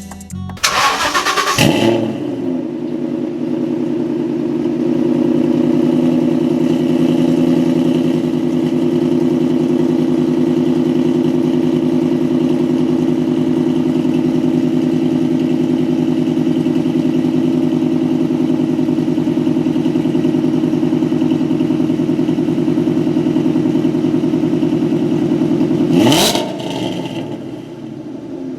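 Ford Mustang V8 exhaust: the engine revs up, holds a steady, high engine speed for about 24 seconds, then the revs fall away near the end.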